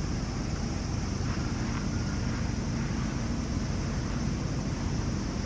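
Outdoor ambience: a steady low rumble of wind buffeting the microphone, with a faint steady high hiss above it.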